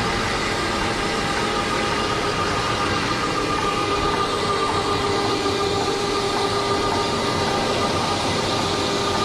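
Rotary carpet extraction tool running on carpet: a steady, loud machine drone with a whine and the hiss of vacuum suction.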